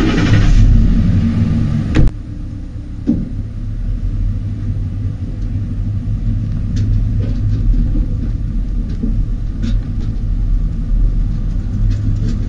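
The tow vehicle's engine starts with a loud burst, then settles into a steady low rumbling idle, with its exhaust right next to the microphone. Faint clicks and rattles come later on as the rig begins to roll.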